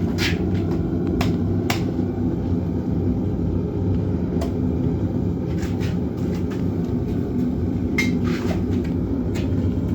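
Foundry furnace burner running with a steady low roar as brass melts. A few sharp clicks or taps sound over it, several in the first two seconds and two more near the end.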